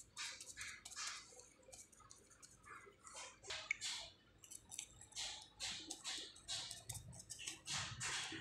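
Fingers rubbing and dabbing over a paper doll covered in clear plastic tape: a run of faint, short, scratchy strokes, about two a second.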